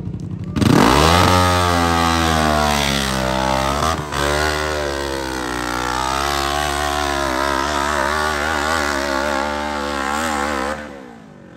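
Dirt bike engine revving hard at full throttle, jumping in suddenly about half a second in as the bike leaves the start gate and sweeping up in pitch. It then holds high and loud up the hill, its pitch wavering rapidly up and down, before cutting off sharply near the end.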